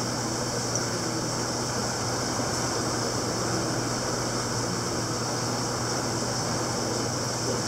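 Steady hum of running aquarium equipment with an even hiss of circulating water, unchanging throughout.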